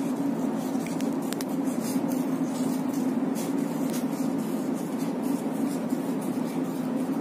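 Scissors cutting a paper circle into a spiral: faint, irregular snips over a steady low hum.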